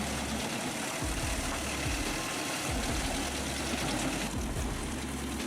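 Engine-driven wood chipper running and chewing through wood, a steady dense mechanical din; the higher hiss eases off about four seconds in.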